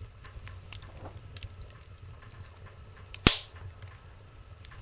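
Wood fire burning in a firebox, crackling with scattered small pops and one sharp, loud pop about three seconds in, over a low steady rumble.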